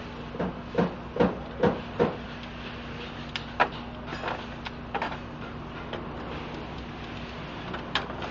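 Hand wrench being worked on engine bolts: a run of short metallic strokes about two or three a second for the first two seconds, then scattered clicks and knocks, over a steady low hum.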